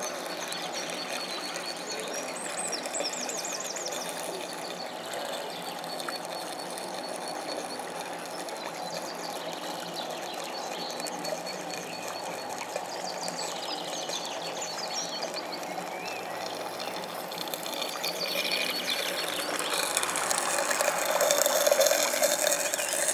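Model live-steam cabin launch running on the water, its small steam engine and exhaust audible over steady outdoor background noise. The sound grows louder near the end as the boat passes close.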